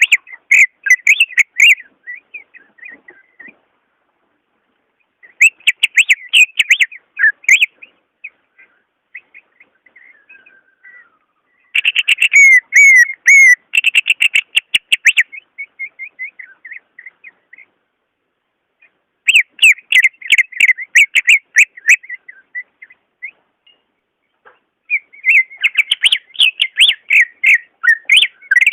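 Cucak ijo (greater green leafbird) singing rapid runs of varied whistled notes. The song comes in several phrases of a few seconds each, with short pauses between them.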